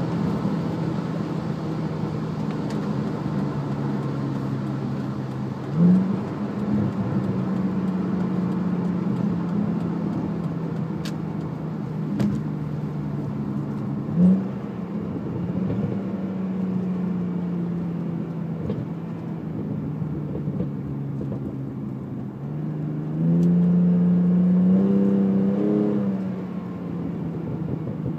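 BMW E39 520i's M54 straight-six running through a straight-piped, muffler-deleted stainless exhaust with two Sebring resonators while cruising, the engine note jumping up briefly twice, about six and fourteen seconds in. About twenty-three seconds in the revs climb and it grows louder for about three seconds, then drops back to a steady cruise.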